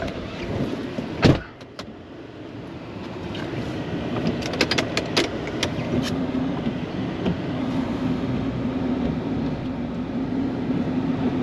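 Snow-plow truck running while plowing, its engine drone growing steadier and stronger after about six seconds. There is a single loud knock about a second in and a few short clicks around five seconds.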